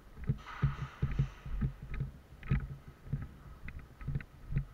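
Footsteps of a camera-wearing airsoft player walking on a concrete floor, a low thump two or three times a second, with light clicks and rattles of gear. A short hiss comes about half a second in.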